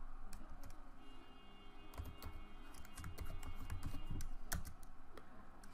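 Typing on a computer keyboard: scattered clusters of keystrokes, with one louder key press about four and a half seconds in.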